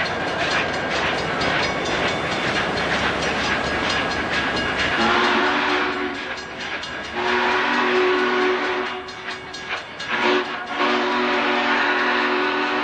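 Union Pacific excursion train rolling close past, cars clattering over the rails. About five seconds in, a locomotive sounds a steady multi-note chord as long, long, short, long blasts: the grade-crossing signal.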